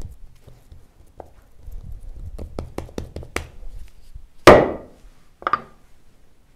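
Kömbe dough being pressed into a wooden cookie mold and the mold knocked down on the work surface. A run of light taps and clicks is followed by one loud wooden thunk about four and a half seconds in and a smaller knock a second later.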